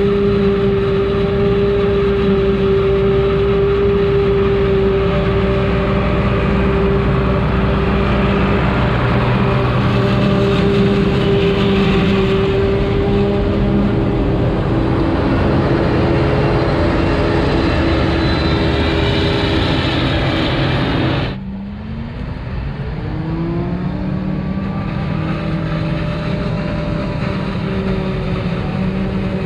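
Heavy farm machinery engines at a maize silage harvest, running with a steady drone. About two-thirds of the way in, the sound drops suddenly, then an engine rises in pitch as it speeds up and settles into a steady run.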